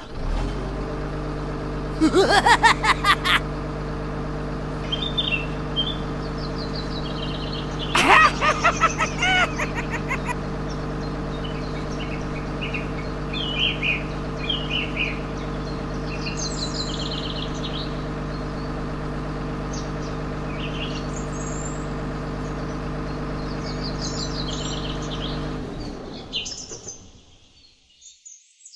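A steady engine hum for the toy truck runs until it fades out about 26 seconds in, with birds chirping over it. Two short, louder sounds with rising pitch come in about 2 and 8 seconds in.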